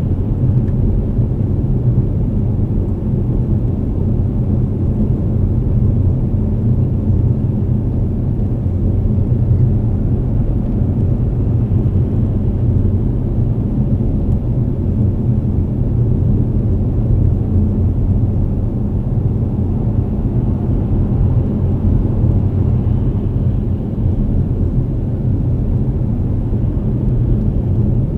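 Steady low rumble of a car's engine and tyres at highway speed, heard from inside the cabin.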